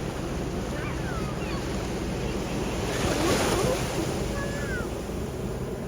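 Ocean surf washing onto the shore with wind buffeting the microphone; a wave breaks louder about three seconds in.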